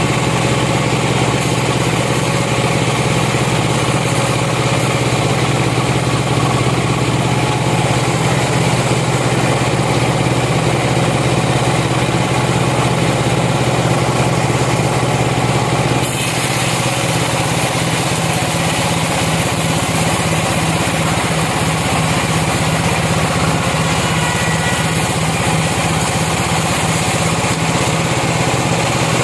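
Sawmill machinery's engine running steadily at a constant speed; the sound shifts abruptly about sixteen seconds in.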